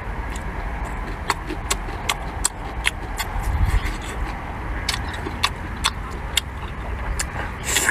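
Irregular sharp taps and clicks of cooking utensils, roughly one or two a second, over a steady low background hum.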